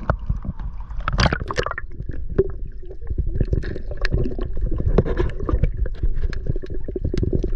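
Water sloshing and gurgling against a kayak hull, with many scattered knocks and clicks and a low steady rumble.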